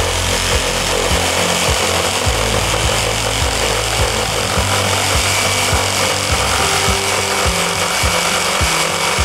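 Single-speed PRIMERO electric jigsaw sawing through SPF softwood board, the motor running at one fixed speed and the blade cutting with a steady, loud rasping noise and irregular low knocks. The saw makes slow headway, which is put down to a supplied blade that does not cut well.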